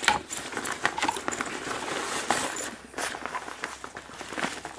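Rustling and crinkling of a coated-fabric diaper bag and its changing pad as they are handled and unfolded, with scattered clicks and knocks from handling.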